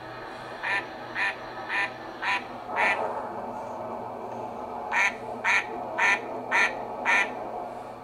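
A duck quacking in two runs of five calls, about half a second apart, over a faint steady low hum.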